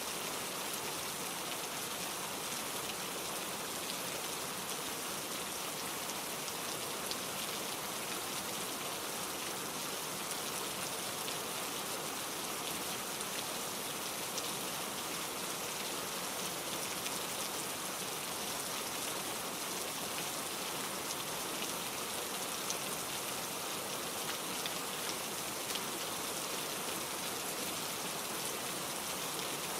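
Steady rain falling on a surface: an even hiss with scattered small drop ticks.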